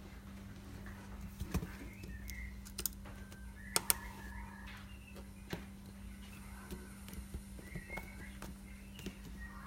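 Sparse small clicks and taps from handling phone parts and tools during an iPhone 6 battery replacement, the loudest a pair of sharp clicks about four seconds in. Faint short bird chirps come and go over a steady low hum.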